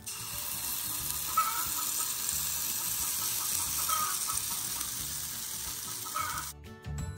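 Hot butter sizzling in a stainless steel skillet as pancake batter is poured in, an even hiss that cuts off abruptly near the end.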